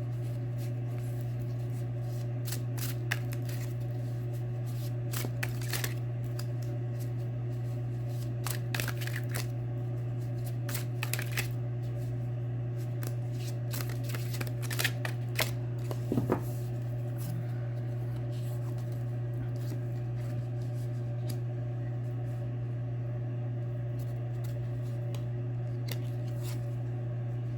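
Ethereal Visions Luna Edition tarot cards being shuffled and laid out in a spread: scattered soft slides, slaps and rustles of card stock, a few louder ones around the middle. A steady low hum runs underneath.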